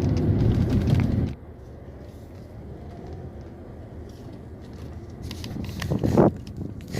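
Hyundai Santa Fe driving on the road, heard as a loud low rumble that drops off abruptly about a second in to a quieter, steady low running noise, with one short loud sound near the end. The low hum at road speed is the owner's complaint, which the title puts down to a grinding transfer case.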